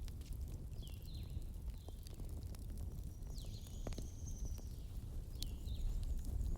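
Firewood burning in a fireplace: scattered sharp crackles and pops over a low steady rumble, with a few brief high chirping notes.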